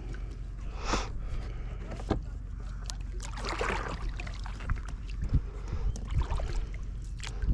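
Kayak paddle strokes: the blade swishing through the water in swells a couple of seconds apart, with a few light knocks, over a steady low rumble.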